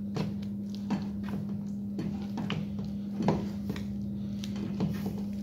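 Wooden masher (ghotna) pressing and stirring boiled chicken and chana dal in an aluminium pressure cooker: soft squelching with irregular knocks of wood against the pot, the loudest a little over three seconds in. A steady low hum runs underneath.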